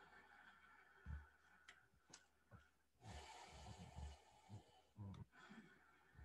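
Faint, slow, deep breathing by a man, long drawn breaths of about two seconds each, with a few soft clicks.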